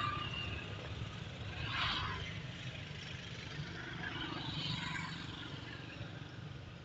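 Low, steady rumble of a vehicle engine running nearby, with a short hiss about two seconds in.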